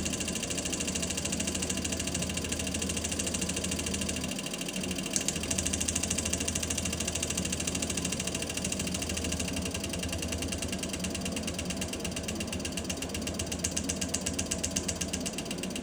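Solenoid valve of an ABS hydraulic unit being pulsed by a test device, clicking rapidly in an even, machine-gun-like rhythm, with a low hum beneath. The rhythm changes a couple of times, as the pulse rate is varied.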